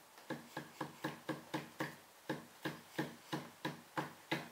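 A screwdriver jabbed again and again at a spray paint can held under water in a glass tank, to puncture it: a steady run of sharp knocks, about three or four a second, each with a brief ring.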